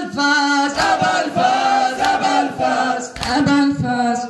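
A mourning lament (mərsiyə) sung by a male reciter through a microphone, with a group of men chanting along in long held notes. Sharp slaps of chest-beating (sinə vurma) land in a steady beat about every 1.2 seconds.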